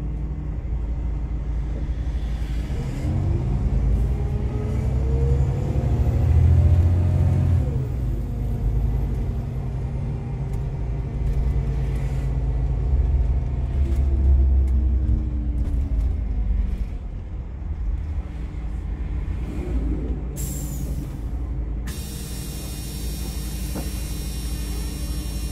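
Interior sound of an Iveco Crossway LE bus's Cursor six-cylinder diesel and Voith automatic gearbox. The engine rumbles steadily and its note rises twice as the bus accelerates, then eases off. About four-fifths of the way through there is a short hiss of released air from the air brakes.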